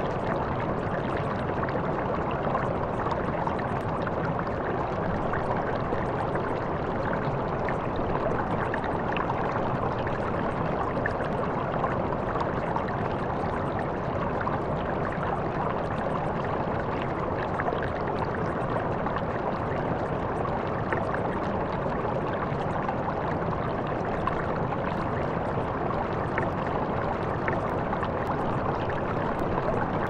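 A steady mix of running water and brown noise, with faint fire crackles scattered through it.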